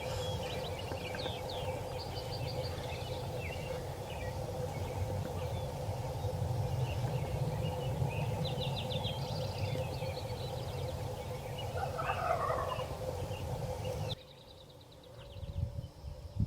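Wild turkey gobbling, with a loud rattling gobble about twelve seconds in, among small songbirds chirping and trilling over a steady background hiss. The background drops away abruptly near the end.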